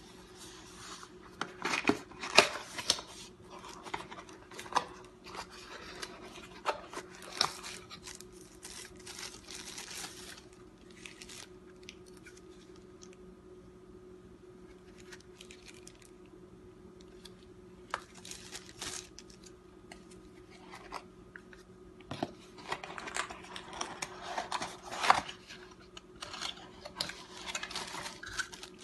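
Cardboard phone box and plastic wrapping handled during an unboxing: the box slides open, packaging rustles and crinkles, and small clicks and taps come in irregular clusters, with a quieter stretch in the middle. A faint steady hum runs underneath.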